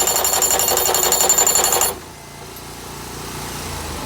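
Mast-mounted post driver rapidly hammering a deer-fence post into the ground, stopping abruptly about two seconds in; a quieter engine then keeps running.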